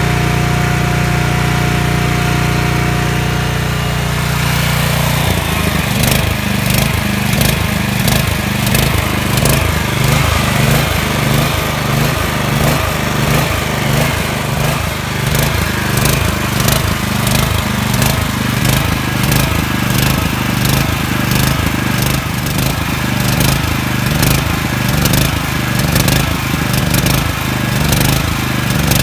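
Engine of a Generac 7,500-watt portable generator running steadily. About five seconds in its sound turns rougher and more pulsing, with a regular clicking on top.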